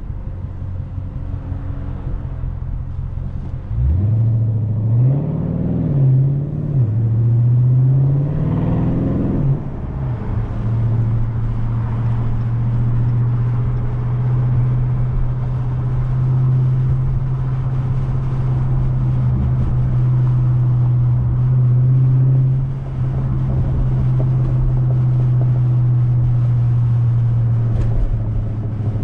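Tuned 2020 Dodge Charger Scat Pack's 392 HEMI V8 through a mid-muffler-deleted exhaust. About four seconds in it suddenly gets louder as the car accelerates, the engine note rising and falling several times, then it settles into a steady drone at cruise.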